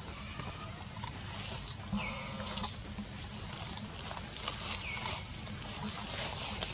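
Monkey calls: two short, bleat-like cries, about two seconds in and again near five seconds, over a steady high-pitched background hum.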